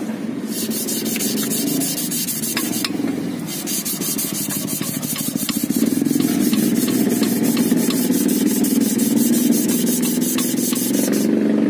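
Sandpaper strip being pulled back and forth around a crankshaft connecting-rod journal by a cord, a steady rhythmic scraping with a short pause about three seconds in. The journal is being hand-polished to clean up the wear behind a knocking rod bearing, a makeshift fix in place of machine-shop grinding.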